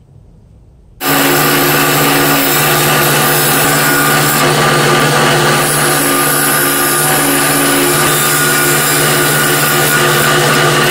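Wood lathe running with a steady motor hum while a hand-held turning tool cuts into the inside of the spinning wooden piece, making a continuous scraping hiss. It starts suddenly about a second in.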